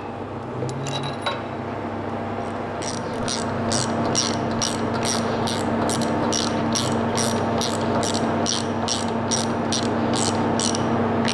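Steady mechanical hum of workshop machinery, getting louder about two seconds in, with a run of sharp, evenly spaced metallic clicks, about three a second, from about three seconds in.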